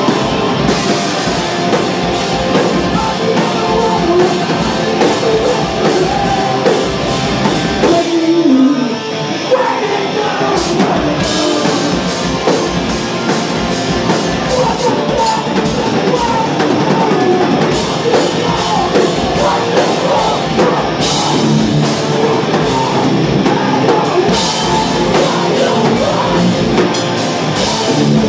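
Live hardcore punk band playing loud: distorted electric guitars and a drum kit, with vocals. About eight seconds in the drums and low end drop out briefly, then the full band crashes back in.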